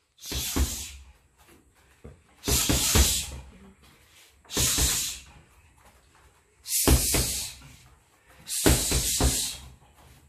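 Sharp hissing exhalations from a fighter shadowboxing, one quick burst of breath with each combination of strikes, five times about two seconds apart. Bare feet thud on the foam floor mat at the start of each burst.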